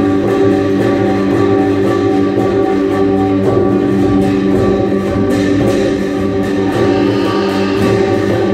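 Music for a Lanna-style peacock-tail fan dance: a plucked-string melody over steady held tones, with a quick, even beat of light percussion.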